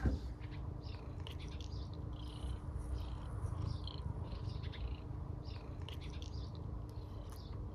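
Tabby cat purring steadily: a low, even rumble close to the microphone.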